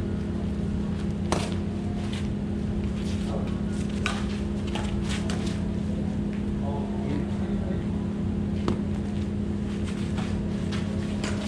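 Badminton rally: sharp smacks of racket strings hitting the shuttlecock, a few seconds apart with a quick cluster about five seconds in, over a steady machine hum from air-conditioning units.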